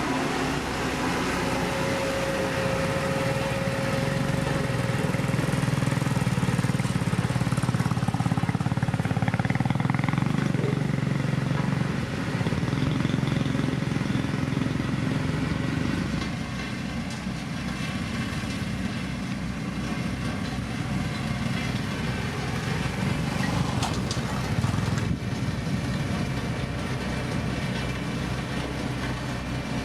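Diesel engine of heavy road-building machinery, a motor grader or road roller, running steadily under work. Its note shifts about twelve seconds in and again a few seconds later as the load changes.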